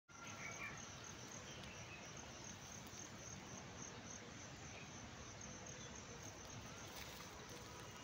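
Faint insect chirping: a high pulse repeating about three to four times a second over soft outdoor background noise, fading near the end.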